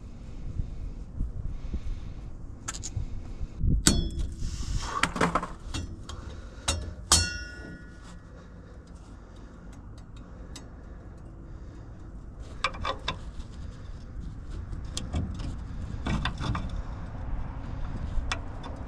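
Metal clinks and clanks from a steel bolt and hand tools being worked at a pickup's rear shock absorber mount while the new shock is fitted. A few sharp clinks ring briefly, the loudest about four and seven seconds in, with quieter handling in the middle and more clicking near the end, over a low steady rumble.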